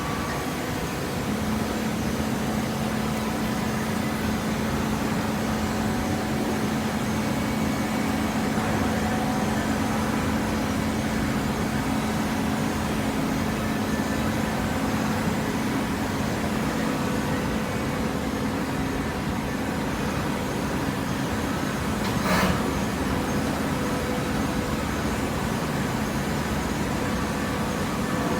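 Waste-paper baler machine running with a steady mechanical hum, with one sharp knock about 22 seconds in.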